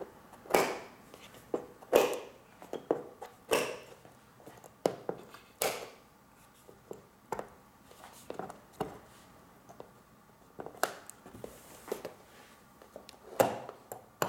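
A series of irregular sharp clicks and short scrapes as a metal tool pushes a poster frame's small soft metal retaining nails flat against the hardboard backing. The loudest click comes about two seconds in.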